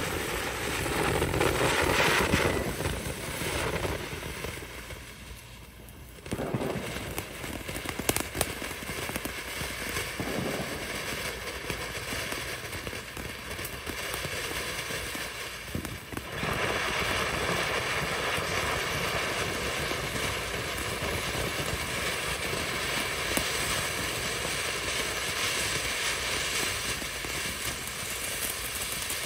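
A Jumping Jelly Beans consumer firework fountain burning: a noisy hissing spray, at first with its multicolored fish effects. It dies down briefly about five seconds in, comes back with a few sharp pops, and from about sixteen seconds on settles into a louder, steady hiss as it throws gold sparks.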